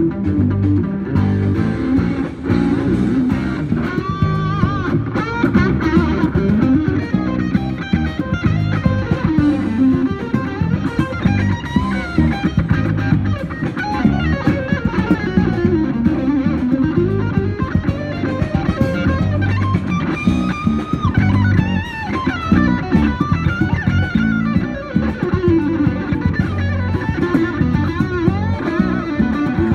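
Electric guitar played through a DV Mark amplifier rig: a fast lead line with string bends and vibrato, over a low bass line.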